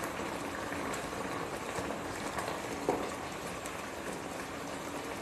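Fish curry gravy bubbling and sizzling in a frying pan while a wooden spatula stirs it through, with one light knock about three seconds in.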